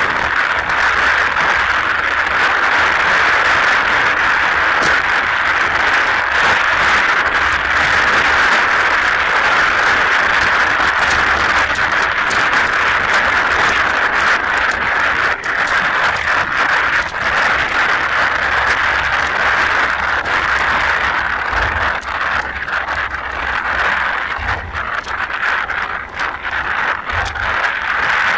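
Steady rain falling: a dense hiss dotted with many small drop ticks, and a few low bumps in the last third.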